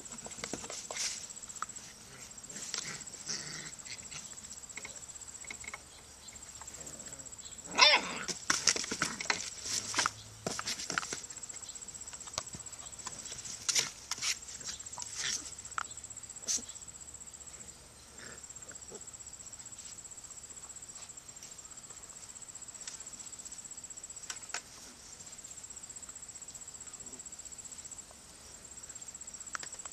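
Steady high chirring of insects, with young puppies scuffling on the grass and knocking about a cardboard box. There is a cluster of loud knocks and rustles about eight to eleven seconds in, and a few more around fourteen to sixteen seconds.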